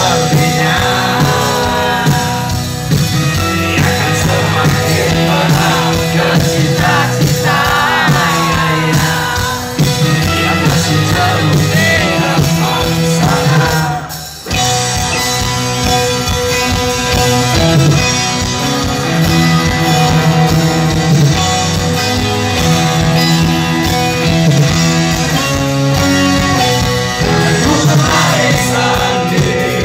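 Live rock band playing a song with sung vocals, guitars and drums. The band cuts out for a moment about halfway through, then comes straight back in.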